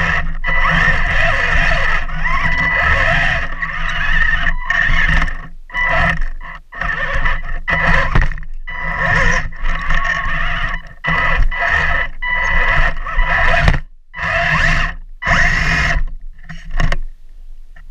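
Tracked RC tank driving over dirt and logs: its drive motors and gearboxes give a steady high whine with track and hull noise underneath. The sound starts and stops in bursts every second or two and drops away shortly before the end.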